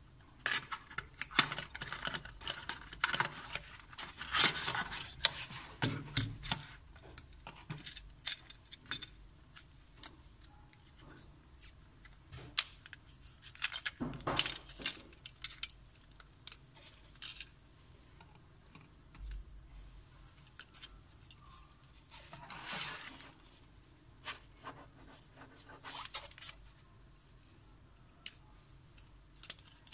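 Hands opening a cardboard box and handling a plastic and metal selfie stick with a fold-out tripod: rustling card and plastic with scattered clicks, rattles and scrapes. The handling is busiest in the first few seconds, with a sharp click about 14 seconds in and a longer rustle about 23 seconds in.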